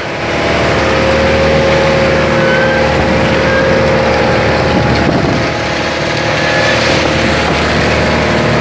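Fishing boat's engine running steadily at sea, over a hiss of wind and water.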